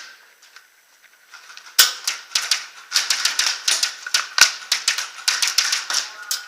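Airsoft gunfire: after a short lull, irregular sharp snapping shots begin about two seconds in and come several a second, in a quick clatter.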